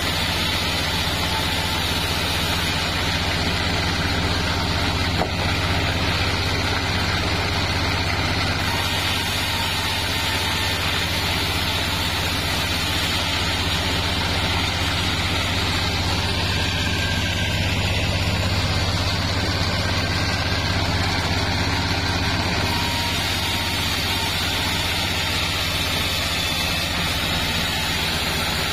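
Vertical band saw mill running steadily with a constant low hum while its blade cuts sengon wood into boards.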